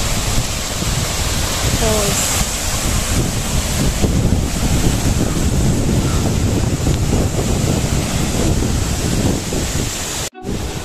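Water rushing steadily over the rocks of a small waterfall, with wind rumbling on the microphone. The sound cuts out for a moment near the end.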